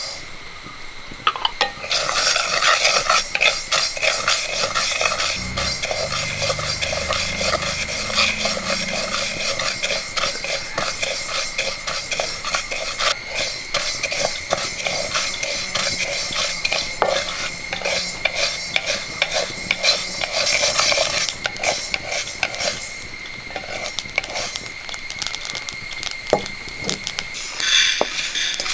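Fenugreek and mustard seeds dry-roasting in a metal kadai, stirred with a flat spatula: a dense rattle and scrape of seeds and spatula against the pan. Near the end the roasted seeds are tipped out onto a clay plate with a short patter. A steady high tone sits underneath.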